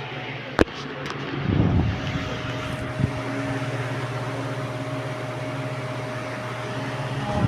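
Electric fan running with a steady motor hum, with a sharp click about half a second in and a smaller one around three seconds in.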